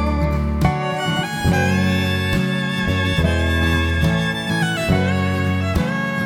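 Background instrumental music with fiddle and guitar over a steady bass.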